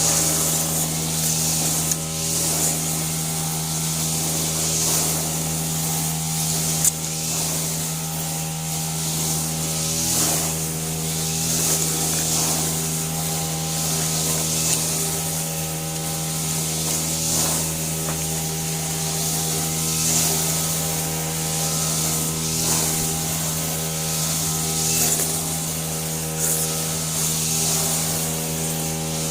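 A steady electrical hum made of several even tones, with a hiss on top that swells every couple of seconds from curry instant noodles being slurped and chewed.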